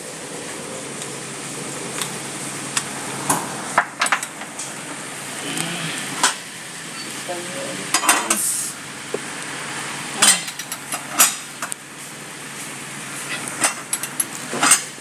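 Irregular sharp metallic clinks and knocks of a socket and pipe extension bar being fitted and worked on a lower control arm mounting bolt, over steady workshop background noise.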